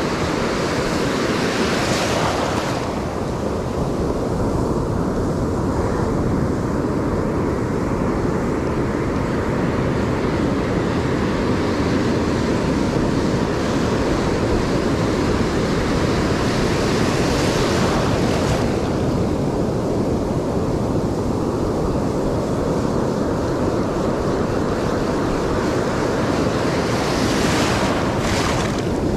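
Ocean surf breaking and washing over the shallows in a continuous loud hiss, swelling three times as waves come in: near the start, around the middle and near the end. Wind buffets the microphone underneath.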